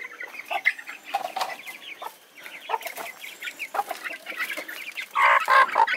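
Chickens in a coop going crazy, clucking in many short, overlapping calls, with a louder flurry of calls near the end.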